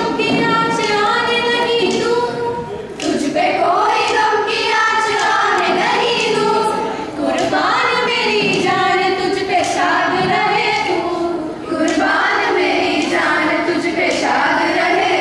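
A group of schoolgirls singing a song together into microphones, in long phrases with short breaks between them.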